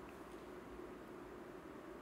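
Faint, steady background hiss with a couple of very faint clicks near the start.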